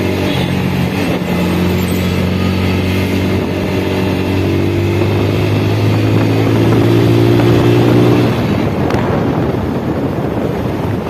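Motorcycle engine running at road speed, its note climbing slowly as the bike accelerates. About eight seconds in the throttle closes and the engine note drops out, leaving wind rush on the microphone.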